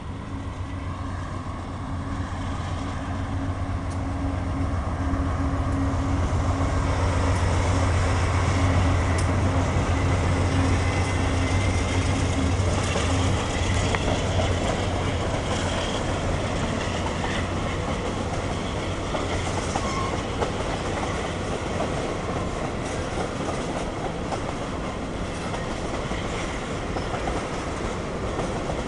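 CSX mixed freight train passing. The diesel locomotives' engine drone is loudest about eight seconds in and fades out after about sixteen seconds. After that comes the steady rumble and clatter of tank cars rolling by on the rails.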